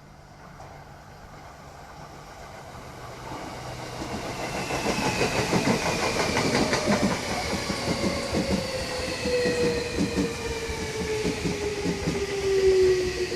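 Tokyo Metro 13000 series train pulling into a station, getting louder over the first few seconds, with wheels clacking over rail joints. The motors' whine falls steadily in pitch as the train brakes to a stop.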